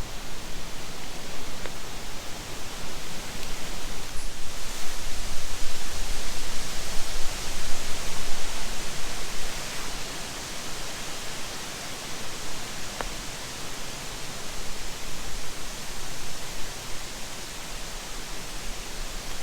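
Steady rushing outdoor noise, an even hiss with no distinct events. It is louder over the first half and eases off about ten seconds in.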